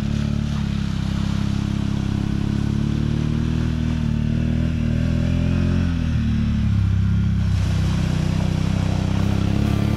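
ATV engine running steadily. About six seconds in, its pitch dips and the low rumble grows louder.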